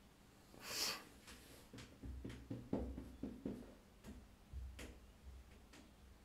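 Faint, scattered clicks and light taps, a dozen or so over a few seconds, with a short soft hiss about a second in.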